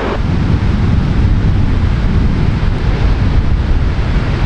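Wind buffeting the microphone in a loud, steady low rumble, over the wash of ocean surf on a beach.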